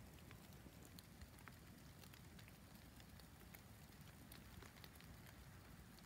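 Near silence with faint, irregular ticking of falling snow, several light ticks a second.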